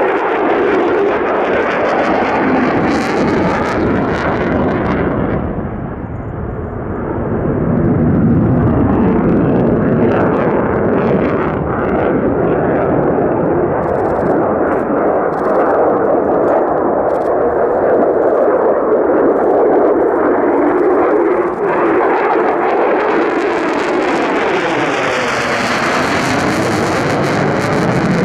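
Mitsubishi F-2 fighter's single F110 turbofan engine at high power on a low display pass: a loud, continuous rushing jet noise with a swirling, shifting tone as the aircraft moves across the sky. It dips briefly about six seconds in and grows hissier over the last few seconds.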